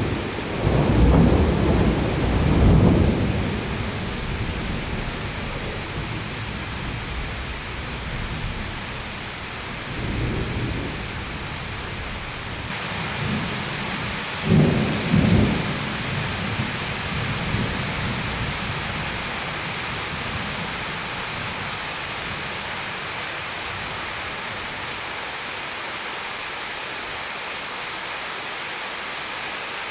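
Steady heavy rain with rolling thunder: a loud rumble in the first few seconds, a weaker one about a third of the way in, and another strong one about halfway, after which only the rain goes on.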